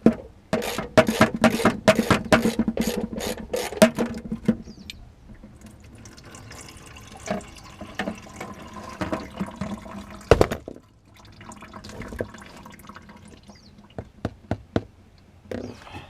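Hand tools working the oil pan bolts of a 1973 Ford F-250 Highboy's 360 FE V8. A burst of rapid clicking runs for the first four seconds or so, then quieter scraping and fiddling, with one heavy knock about ten seconds in.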